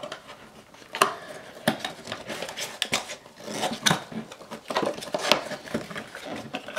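Irregular clicks, rattles and rustling of plastic packaging and small plastic camera mounts being handled and taken out of a box.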